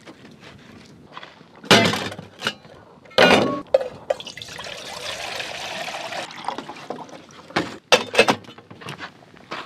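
A handful of loud, sharp knocks and clatters, with a rushing, pouring or splashing noise lasting about two seconds in the middle.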